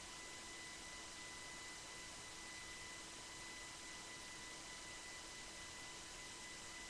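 Faint steady electrical hiss with a thin, constant high-pitched whine, and no other sound: background noise of the recording chain with the microphones silent.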